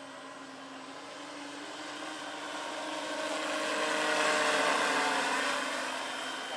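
Electric motor and main and tail rotors of a large-scale electric RC model AS-350 Ecureuil helicopter (2.5 m rotor) flying past: a steady hum and whine that swells to its loudest about four seconds in and then fades as it moves away.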